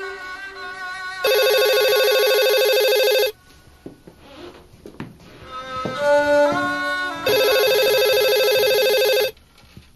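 Desk telephone ringing with an electronic ring: two rings of about two seconds each, six seconds apart. Background music with sliding string-like tones plays before each ring.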